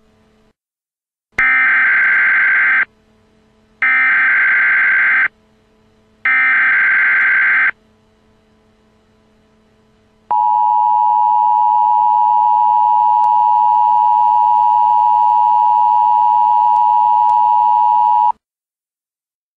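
Emergency Alert System header: three short, harsh, screeching data bursts about a second apart, then the EAS two-tone attention signal, a steady loud tone held for about eight seconds before it cuts off.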